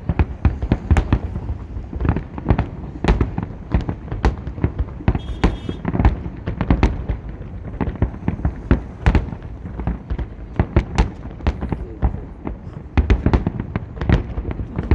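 Fireworks salute: a dense, unbroken run of bangs and pops, several a second, with deep booms underneath.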